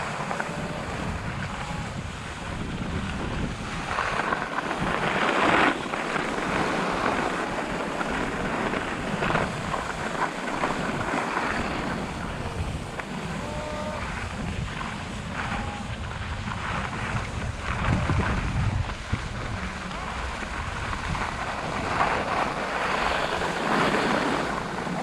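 Wind noise buffeting an action camera's microphone during a ski run, with skis scraping over packed snow. The noise swells in bursts, loudest about five seconds in and again near eighteen seconds.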